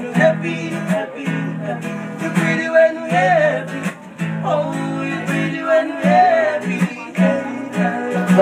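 Acoustic guitar strummed in steady chords with a man singing over it.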